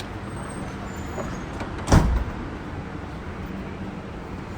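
A single loud bang about two seconds in, with a short echoing tail, over a steady low hum.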